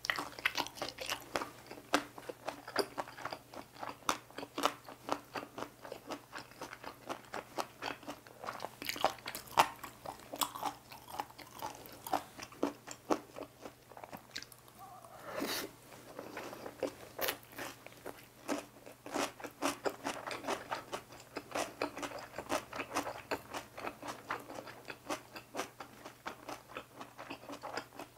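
Close-miked chewing of cucumber gimbap: crisp, crunchy bites of fresh cucumber and rice. A brief falling tone about halfway through.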